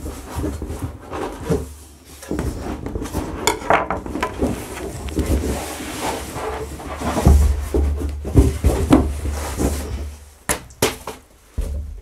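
Cardboard box and packaging being handled while a vacuum pump is pulled out of it: rustling, scraping and knocks, with a few sharp clicks near the end, over background music.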